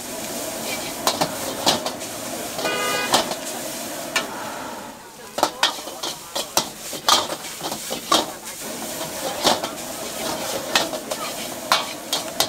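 Metal ladle clanking and scraping against a steel wok as noodles are stir-fried, over a steady sizzle of frying. The clanks come irregularly, sometimes several a second, with a quieter spell about five seconds in.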